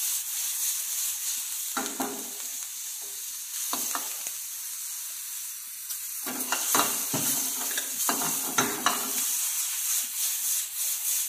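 Chopped mushrooms, onion, garlic and capsicum sautéing in olive oil in a steel frying pan: a steady sizzle, with a steel ladle stirring and the pan being tossed now and then, the scrapes busiest from about six to nine seconds in.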